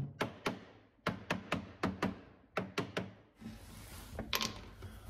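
Hammer tapping a freshly glued wooden drawer guide into place in a dresser frame: about a dozen quick, sharp taps over the first three seconds, then a couple of lighter knocks near the end.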